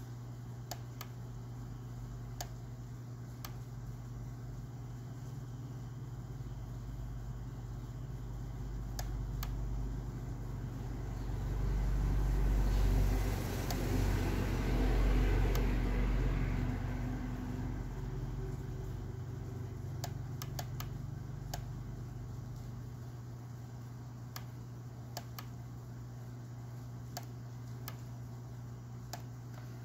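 Steady low hum with scattered light clicks; in the middle a broad rumbling, rushing noise swells up over several seconds and then fades away.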